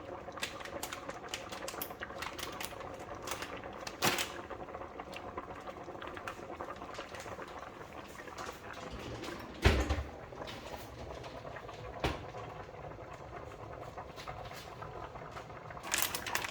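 Kitchen utensils and containers being handled: scattered light clicks and taps, a knock about four seconds in, a loud dull thump near the middle, and another knock about twelve seconds in.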